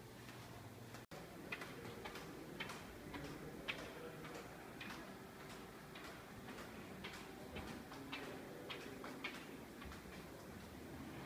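Light footsteps on a tiled floor, about two steps a second at an unhurried walking pace, over a faint steady hum.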